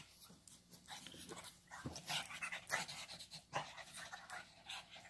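Small dogs, a pug and a Maltese, panting faintly in short breaths as they play, with a few faint short clicks.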